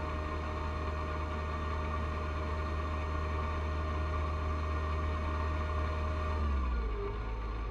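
John Deere 1025R compact tractor's three-cylinder diesel engine running steadily while snow blowing. Near the end the engine speed drops, its pitch falling away, leaving a steady whine.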